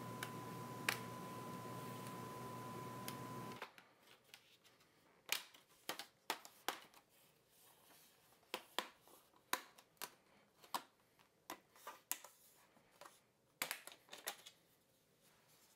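Plastic screen bezel of an HP G71 laptop being pried off the display lid, its snap-fit clips letting go in a string of sharp clicks and small cracks from about five seconds in. Before that, a steady hiss and hum with a faint whine that cuts off suddenly.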